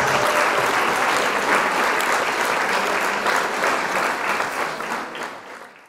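Applause from a crowd, an even patter of many hands clapping that fades away near the end.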